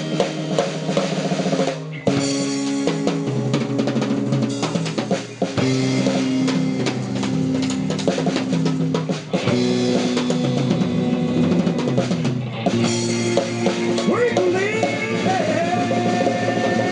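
Rock band playing an instrumental passage on drum kit, bass and electric guitar, with the guitar bending notes upward near the end.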